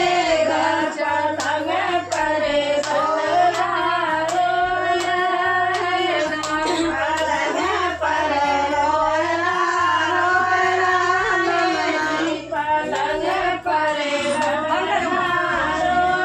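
Group of women singing a traditional Hindi folk song together for a newborn's twelfth-day ceremony, in steady unison, with a few sharp claps scattered through it.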